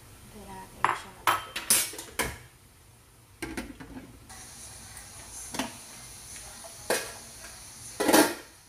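Metal tongs and a metal lid clanking against a metal wok of boiling water: a quick run of clanks in the first couple of seconds, then a few more spaced out, the loudest near the end.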